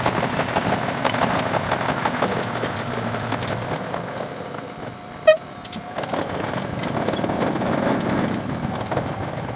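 Ohmi Railway local train running, its sound sped up tenfold into a fast, dense clatter and rush. One short, high beep sounds about five seconds in, which is the loudest moment.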